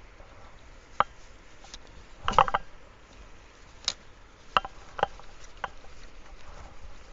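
A few short, sharp clicks and knocks at irregular intervals, with a quick cluster of them a little over two seconds in, over a faint steady hiss.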